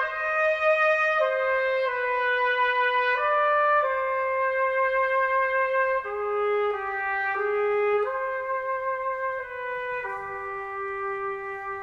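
Background music: a solo trumpet playing a slow melody of held notes, the last note sustained and fading out near the end.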